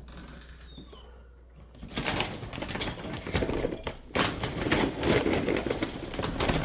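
Dry dog food rattling and clattering as it is scooped and poured out for a dog, starting about two seconds in, with a few faint high chirps before it.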